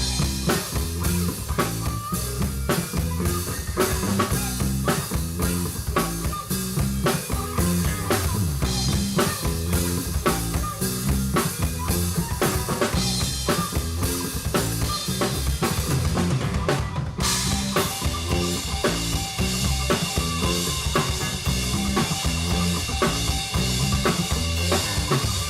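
A band playing live with the drum kit to the fore: kick drum, snare and rimshots on a steady, driving beat under sustained instruments. The band comes back in right at the start and breaks off briefly about 17 seconds in before carrying on.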